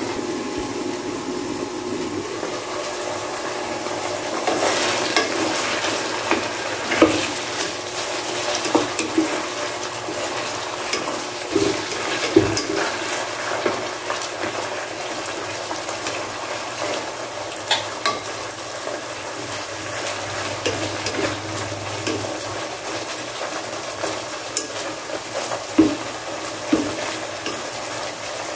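Chicken pieces with onion sizzling in oil in a nonstick pan, a steady sizzle that grows a little louder about five seconds in. A wooden spatula scrapes and knocks against the pan again and again as the chicken is stirred.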